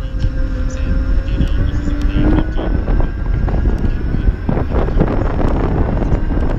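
Kaabo Mantis Pro electric scooter riding: wind buffeting the microphone over a deep, steady road rumble, with a thin whine from its dual motors and scattered knocks and rattles over bumps.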